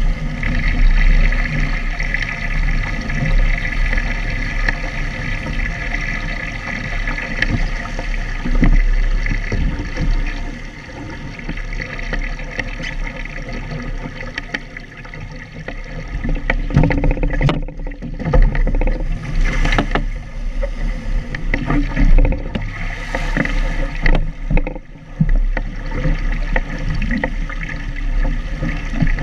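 Water rushing and splashing along a Phantom sailing dinghy's hull as it sails fast through chop, with wind rumbling on the microphone. Louder surges of spray come in the middle of the stretch.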